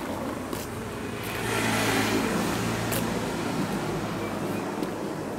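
A car driving past on the road, its tyre and engine noise swelling and fading over a couple of seconds, with a few light clicks.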